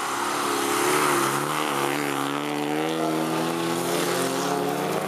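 Engines of several old race cars running hard around a dirt-and-asphalt circuit during a heat, their pitch rising and falling as they accelerate and ease off through the bends.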